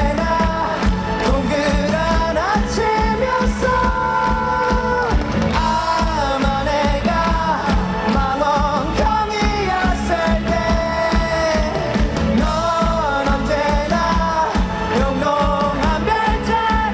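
Live rock band: a male vocalist singing over electric guitar and a drum kit, with a steady beat throughout.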